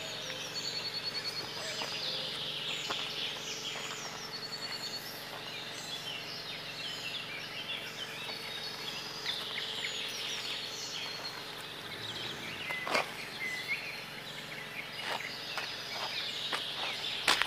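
Wild birds singing and calling over a low steady background, with a rapid high trill heard twice in the first few seconds. A single sharp click stands out about two-thirds of the way through.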